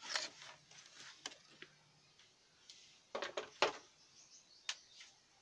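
Handling noise from an electronic drum pad being moved and set aside: scattered knocks, clicks and rustles at irregular times, with the loudest pair of knocks a little past the middle.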